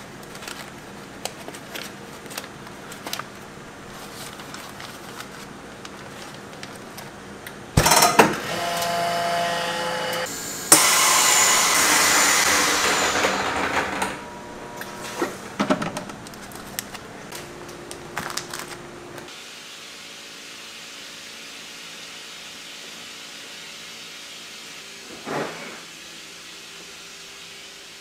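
Chamber vacuum sealer running a cycle: about eight seconds in it starts with a sudden bang and a machine sound with a few steady tones for some three seconds, then a second sharp bang and a loud hiss, air rushing back into the chamber, that fades away over about three seconds. Light clicks and handling knocks come before and after over a low steady hum.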